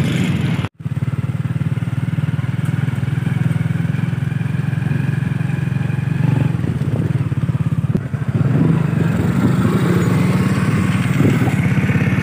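Small petrol engines running steadily at riding speed: a motorcycle and a kids' mini quad bike ride along together. The sound drops out briefly just under a second in.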